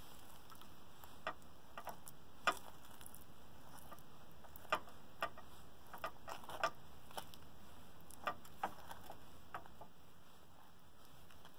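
Table knife spreading crunchy peanut butter on toast: scraping, with about a dozen short, sharp clicks at irregular intervals as the blade knocks against the toast and plate.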